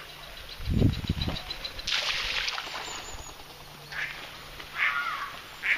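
Ducks on a canal give a few short quacks in the second half, over a hiss of water and a low rumble about a second in.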